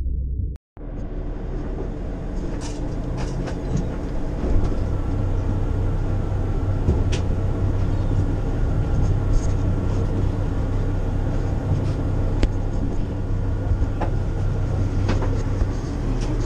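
A boat's engine running steadily, heard inside the cabin as a low drone with a steady hum, and a few short knocks and rattles now and then. The sound cuts out briefly about half a second in.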